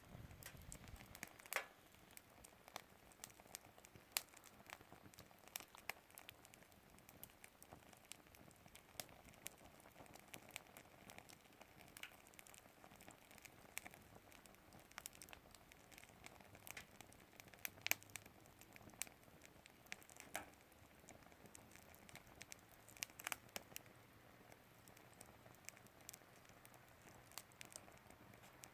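Campfire wood burning with quiet, irregular crackles and sharp snaps, a few louder pops standing out, near 2, 18 and 23 seconds in.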